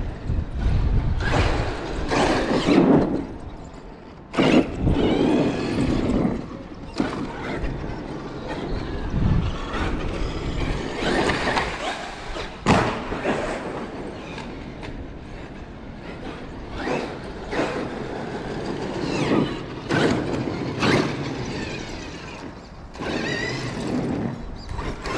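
Traxxas X-Maxx electric RC monster truck's brushless motor and drivetrain whining in repeated bursts of throttle, the pitch rising and falling with each run. Sharp thuds cut through, the loudest about 4 and 13 seconds in.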